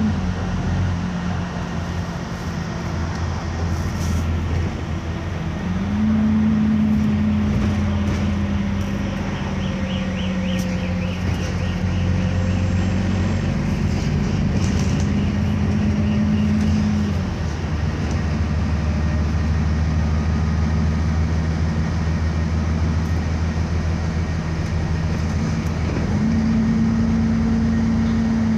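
Alexander Dennis Enviro400 double-decker bus heard from inside the lower deck: its diesel engine drones steadily under road noise. The engine note steps up about six seconds in, falls away a little after halfway, and climbs again near the end as the bus speeds up and slows in traffic.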